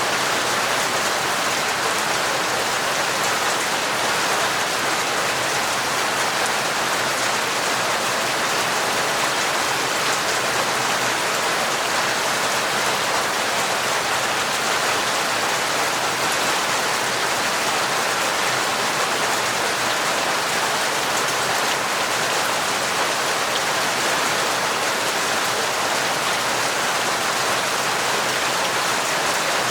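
Heavy, torrential rain falling steadily, an even hiss of countless drops with no thunder.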